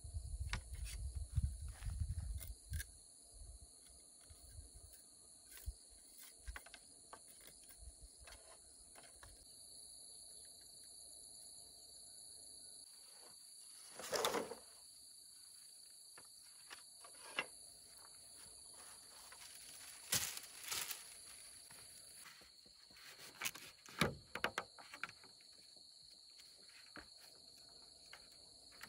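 Insects chirring in a steady, high, even drone, with scattered clicks, taps and rustles of bamboo poles and strips being handled. A low rumble fills the first few seconds, and a louder rustle comes about halfway through.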